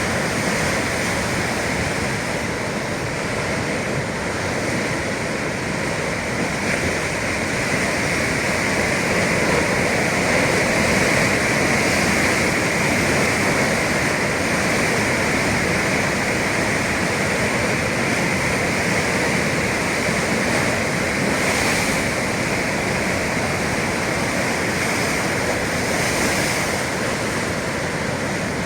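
Atlantic Ocean waves breaking continuously: a steady rush of surf that swells slightly around the middle.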